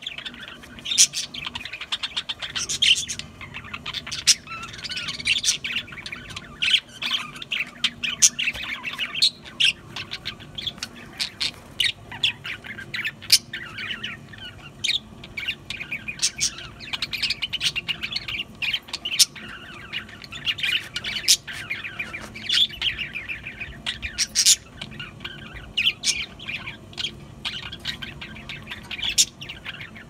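A flock of budgerigars chattering: a dense, unbroken stream of rapid chirps, warbles and sharp clicking squawks.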